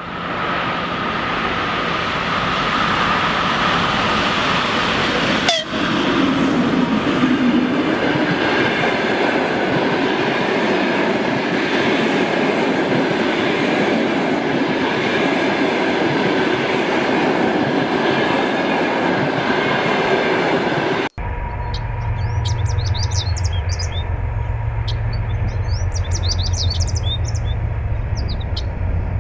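Train running, a steady loud rumble with a faint high whine over it. About 21 seconds in it cuts off abruptly, giving way to a low steady hum with birds chirping over it.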